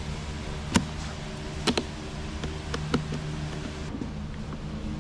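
Hard plastic clicks and snaps, about four, as the generator's plastic housing panels are pressed and fitted back together, over a steady low hum.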